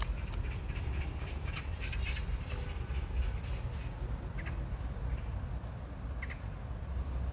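Outdoor ambience: a steady low rumble, like wind on the microphone, with short, harsh bird calls every now and then, a cluster of them a couple of seconds in and single double-noted calls later on.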